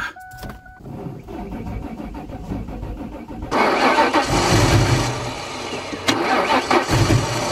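Ford Mustang GT's 4.6-litre SOHC V8 being cranked over on the starter without firing, for a compression test, with the valve cover off and the cam and rocker arms exposed. It turns over with an even rhythmic chug, and the crank is not all that strong. The cranking is heard much louder, close to the open engine, from about halfway.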